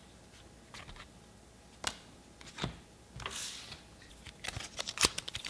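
Pokémon trading cards being handled and set down on a wooden table: a few scattered soft clicks and slides, with denser handling noise building near the end.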